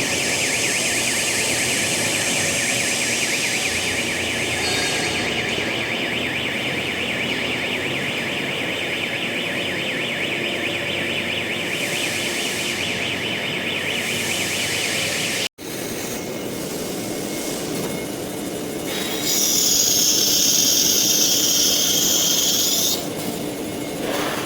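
CNC nesting router running, its spindle whining steadily as the bit cuts through a sheet. There is a brief cut-out about two-thirds of the way through, then a louder, higher-pitched squeal for a few seconds near the end.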